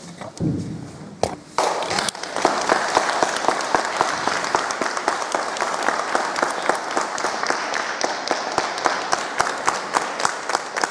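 Audience applauding: a few scattered claps, then about two seconds in steady applause from many people that carries on without a break.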